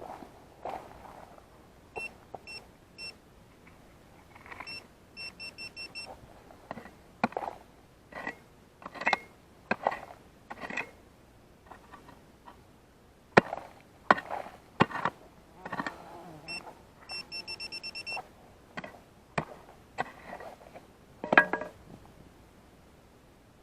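Metal-detecting pinpointer giving short high beeps, some single and some in quick runs, as it homes in on a buried target in the dug soil. Between the beeps come scrapes and several sharp knocks of digging in soil and stones.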